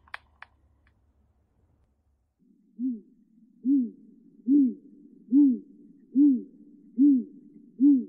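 Great grey owl hooting: after a couple of quiet seconds, a series of seven deep, evenly spaced hoots, a little under one a second.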